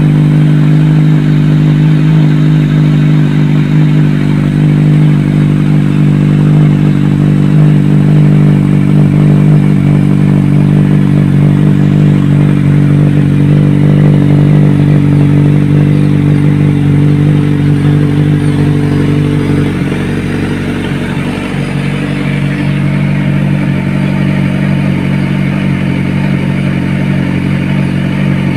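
Kawasaki Ninja 1000SX's inline-four idling steadily after a cold start, heard through a Yoshimura R77 slip-on muffler. About two-thirds of the way through, the idle note drops slightly and gets a little quieter.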